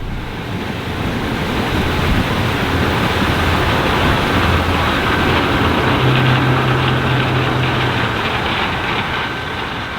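Challenger 560C combine running while harvesting corn: a steady mix of engine and machinery noise. A low hum comes in for about two seconds around the middle.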